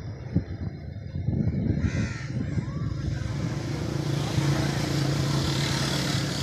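A bird caws once about two seconds in, over low rumbling outdoor noise. Then the engine and road noise of a motor vehicle builds through the second half, with a steady low hum.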